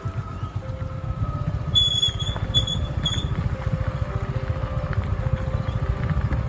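Motorcycle running during a ride, a rough low rumble throughout. Three short high-pitched chirps come about two to three seconds in.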